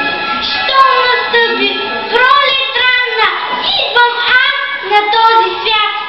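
A girl singing solo in sung phrases over instrumental accompaniment.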